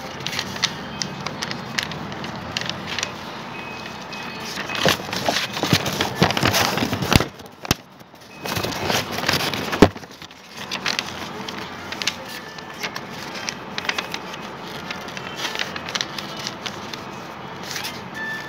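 A sheet of paper rustling and crackling as it is handled and folded by hand, in irregular bursts that are loudest about five to seven seconds in and again around ten seconds.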